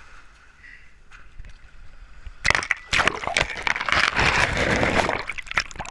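Water splashing and sloshing around a GoPro as it is dipped into shallow lake water, starting suddenly about two and a half seconds in and running for about three seconds, full of crackling clicks.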